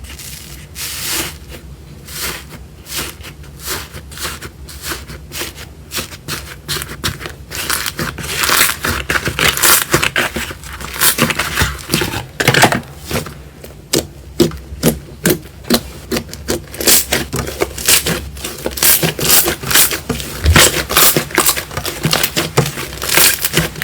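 Slime being squeezed and pressed by hands, giving off a dense run of crackling, popping clicks from air pockets bursting, growing busier about eight seconds in.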